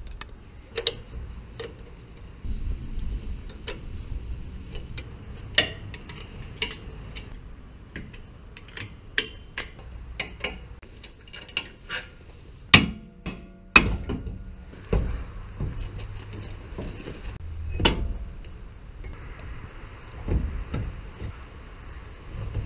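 Hand tools clinking and knocking on the metal bolts and housing of a Toyota 7.5-inch IFS front differential as it is unbolted and worked loose, in scattered sharp clicks. About halfway through come two louder metallic clanks about a second apart, each ringing briefly.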